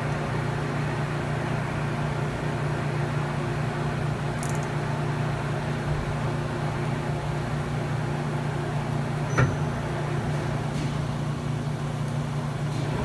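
Kitamura Mycenter 2Xi vertical machining center running, a steady low hum with fainter steady tones above it, and one short click about nine seconds in.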